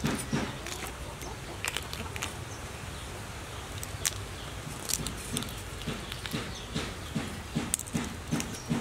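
Cooked prawn shells cracking and snapping in sharp, scattered clicks as the prawns are peeled by hand. In the second half, soft low thuds repeat about three times a second alongside them.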